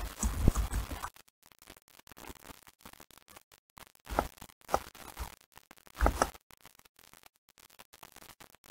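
Faint desk sounds of typing on a computer keyboard and clicking a mouse: soft scattered keystrokes, then a few louder clicks about four seconds in and again about six seconds in.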